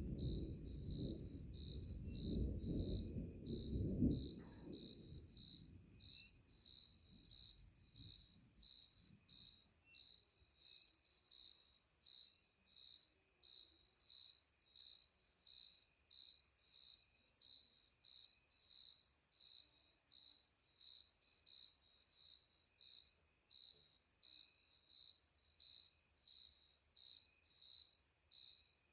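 Crickets chirping steadily, about two chirps a second. A low rumble of distant thunder is heard over the first few seconds, loudest about four seconds in, then fades away.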